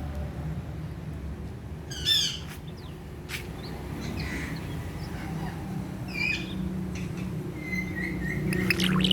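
Ring-necked parakeet squawking and chirping in short calls, the loudest about two seconds in, with softer calls after it and a quick run of chatter near the end.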